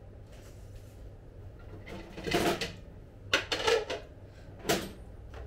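A tabletop hot plate's pan and parts being handled: three short bouts of clattering and knocking, about two seconds in, around three and a half seconds, and again near the end.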